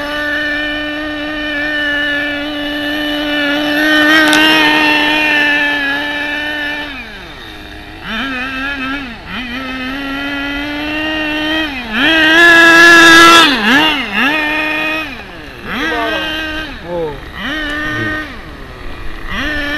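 Small two-stroke nitro glow engine of a Tamiya TG10 Mk.1 1/10-scale RC car, running at a high, steady pitch for about seven seconds. It is then revved down and up again and again as the throttle is worked, loudest in a rising surge about twelve seconds in.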